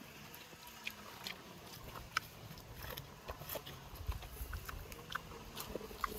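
An animal eating: soft, irregular crunching and clicking, a few small clicks a second.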